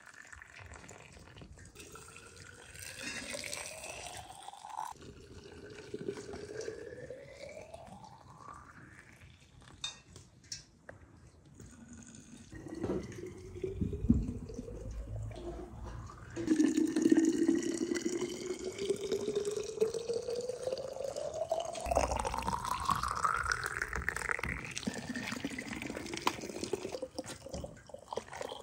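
Water poured from a saucepan into tall glass jars, one jar after another. Each fill has a pitch that rises steadily as the jar fills up.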